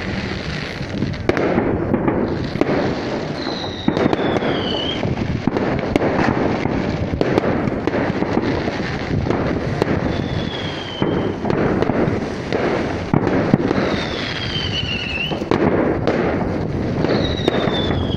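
Fireworks display: dense, continuous crackling and popping with bangs from the aerial bursts and fountains. Four high whistles each fall in pitch over about a second, scattered through the display.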